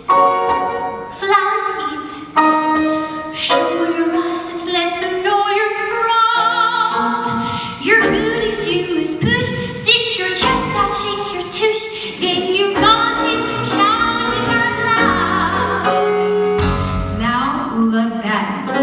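A woman singing a Broadway show tune solo into a microphone, holding notes with vibrato, over live instrumental accompaniment.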